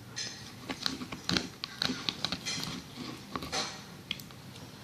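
Spoon stirring slime in a plastic container: irregular clicks and short scraping, sticky sounds as the mixture clumps.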